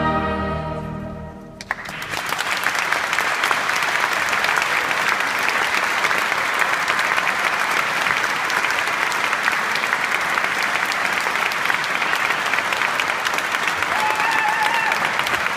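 A choir's held final chord dying away about a second and a half in, followed by an audience applauding steadily.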